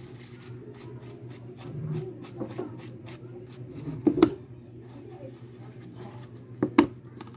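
Paintbrush bristles scrubbing over a headphone's leatherette ear pad in quick repeated strokes, about three or four a second. There are two louder knocks, about four seconds in and again near the end.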